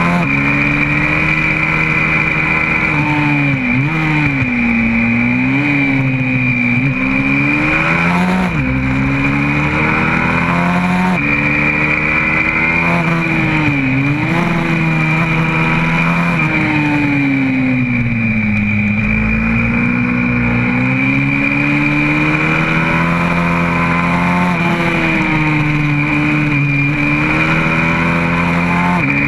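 Single-cylinder four-stroke engine of a YCF 125cc pit bike running hard on track, heard from an onboard camera, its pitch repeatedly dropping and climbing again with the throttle. A steady high whine and wind rush sit under it.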